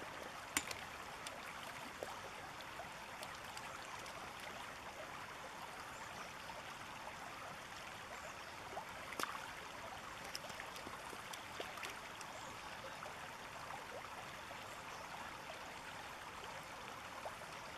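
Shallow river running over stones: a steady rush of water, with a few short clicks about half a second in and near the middle.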